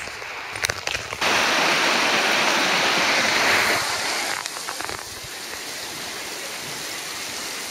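Shallow mountain river rushing over stones: a steady rush of water that jumps in abruptly about a second in, is loudest for the next three seconds, then settles lower and steady. A few brief clicks come just before it.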